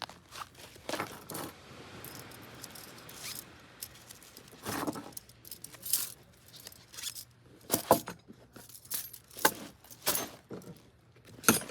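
Metal kitchenware clinking and clattering in a string of separate sharp strikes, a few of them ringing briefly.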